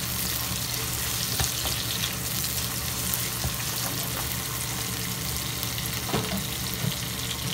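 Sliced onions, ginger and garlic sizzling in oil in a nonstick wok, stirred with a plastic spatula that scrapes and taps against the pan a few times. A steady low hum runs underneath.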